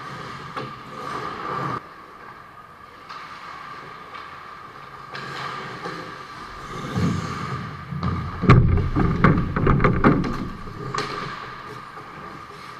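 Ice hockey play around the goal: skates scraping the ice and sticks clacking, rising about halfway through into a dense run of sharp knocks and thumps as players scramble in front of the net, over a steady hum.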